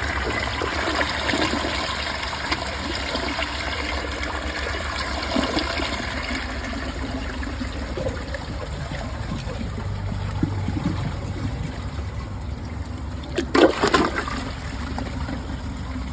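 2018 Mansfield Summit dual flush toilet running water and trickling after a flush, slowly fading. There are two brief louder noises near the end.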